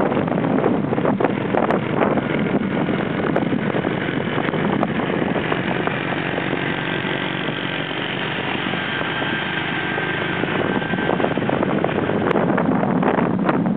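Steady running noise of a moving vehicle: engine and road noise mixed with wind on the microphone, with a faint steady engine hum coming through in the middle.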